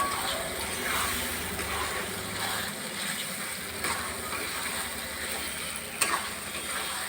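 Onions and spice paste sizzling as they fry in oil in a pan, with a metal spatula scraping and stirring the pan several times. There is a sharp knock of the spatula against the pan about six seconds in.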